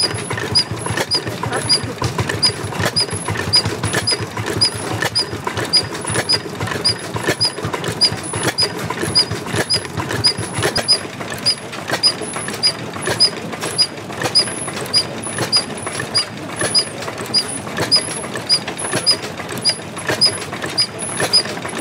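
Old stationary engine running steadily with a rapid mechanical clatter and a sharp, high tick repeating evenly about twice a second.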